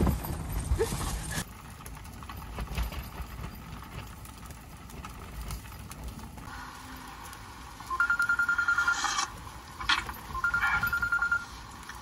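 A telephone ringing twice, each ring a fast trill lasting about a second.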